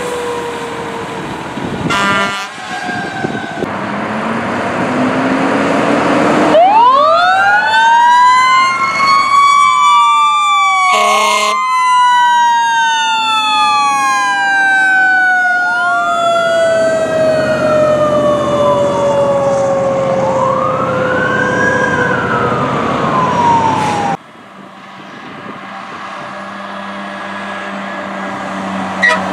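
Fire truck sirens. A mechanical siren winds up fast and then slowly winds down, while an electronic siren wails up and down, with short air horn blasts around 2 and 11 seconds in. The sirens cut off abruptly about 24 seconds in, leaving quieter traffic noise.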